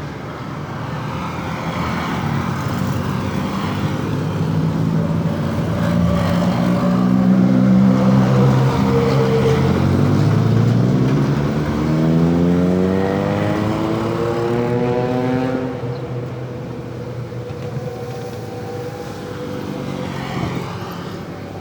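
Truck engine accelerating past on the road, its pitch climbing steadily over several seconds, over continuous traffic noise. It is loudest near the middle, then fades back to the traffic.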